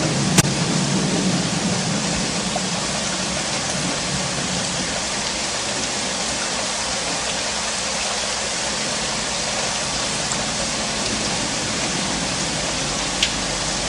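Steady heavy rain hissing. A low thunder rumble fades out over the first few seconds, and two sharp ticks of drops stand out, one near the start and one near the end.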